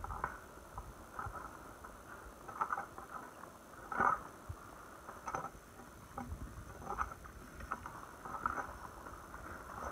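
Water lapping and splashing close by in short splashes, one every second or so, the strongest about four seconds in, over a low rumble of wind on the microphone.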